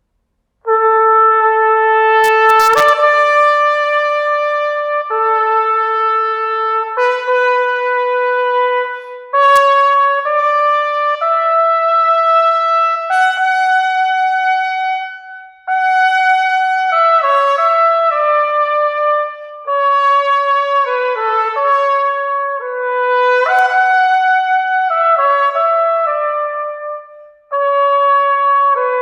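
Solo trumpet playing an orchestral audition excerpt unaccompanied: loud, sustained notes in phrases that begin about half a second in, broken three times by short pauses for breath. A few brief clicks sound near the start.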